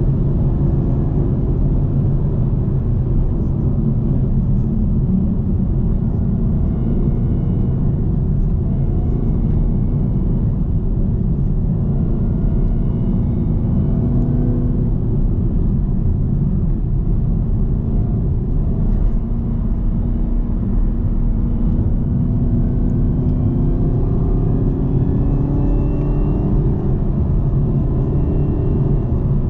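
2018 Camaro ZL1's supercharged 6.2-litre LT4 V8 under way, running steadily with its pitch rising and falling gently as the throttle changes. A faint high supercharger whine rides above the engine note.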